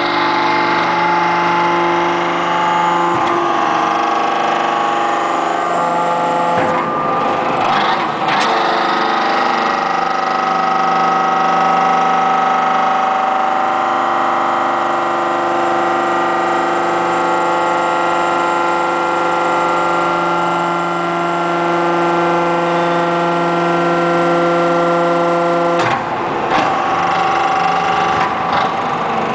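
Hydraulic power unit of a metal scrap baling press, its electric motor and pump running with a steady hum and whine. The tone shifts with short clattering noises around 3 s, again at 7 to 8 seconds, and near the end, where the lowest part of the hum drops away: the pump's load changing as the press works.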